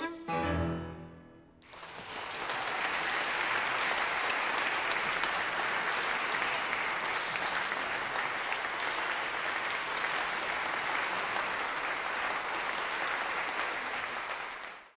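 Violin and piano ending a piece on a final chord with a low piano note, which rings and fades away within the first second and a half. Then an audience applauds, steady and loud, from about two seconds in.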